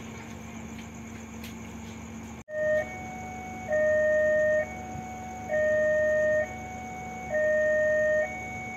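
Electronic railway warning alarm sounding as an oncoming train approaches, alternating steadily between a loud low note and a quieter, slightly higher note, each held just under a second. It starts abruptly about two and a half seconds in, after a low steady hum.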